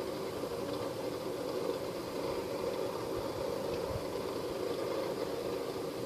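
Steady background hum and hiss, with no distinct strokes standing out.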